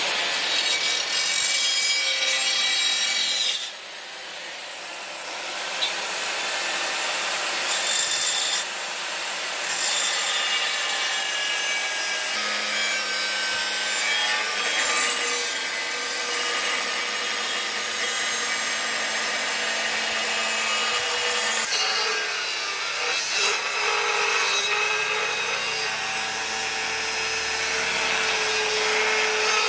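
Angle grinder with an abrasive cut-off disc cutting through a flat, rusty steel bar: a continuous high grinding whine. It drops away sharply about four seconds in, then builds back up over a couple of seconds.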